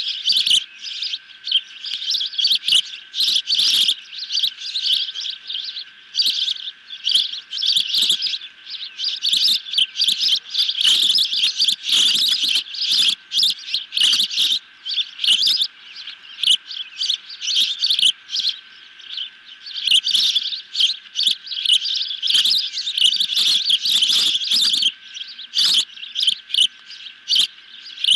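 Osprey chicks calling from the nest: a continuous run of high, sharp chirps and whistles that come in quick bunches with short gaps.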